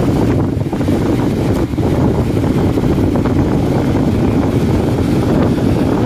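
Strong wind buffeting the microphone, a loud steady low rumble, over waves breaking on a beach.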